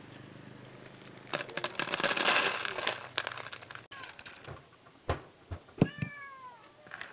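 Dry cat kibble poured into a plastic container: a loud, dense rattle lasting about two seconds. A few soft thumps follow, then a cat meows once, falling in pitch, near the end.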